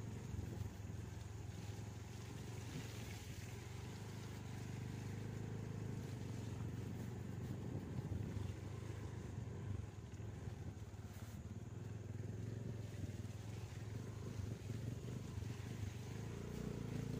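A vehicle engine running steadily with a low drone.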